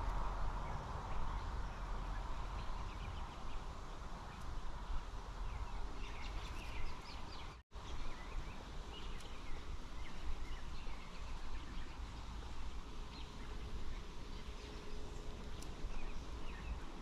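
Outdoor ambience: a steady even hiss with a few short bird chirps scattered through it. The sound cuts out completely for an instant about halfway.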